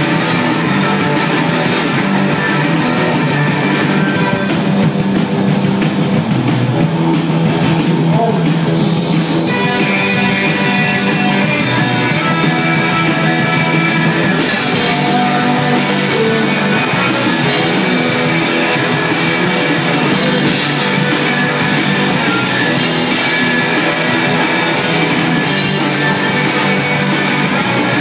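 Rock band playing live: electric guitars and a drum kit, loud and steady. The cymbals thin out for a stretch and come back in strongly about halfway through.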